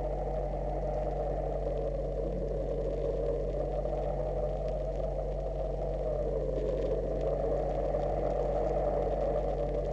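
A steady, unchanging drone over a constant electrical mains hum.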